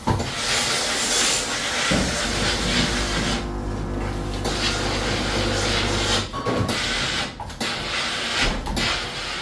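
Steam iron hissing as it lets out steam, a steady hiss with a low hum underneath, broken by several short pauses in the second half.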